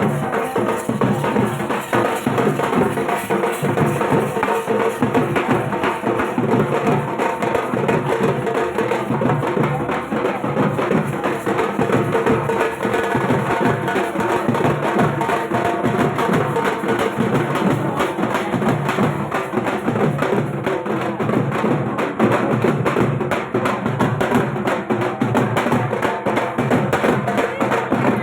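Dhak, the Bengali barrel drum, beaten with sticks in a fast, unbroken rhythm of dense strokes.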